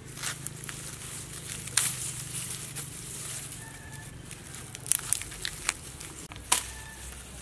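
Lemongrass stalks being cut at the base with a knife and pulled from the clump: dry grass and leaves rustle and crackle, with several sharp snaps as stalks give way.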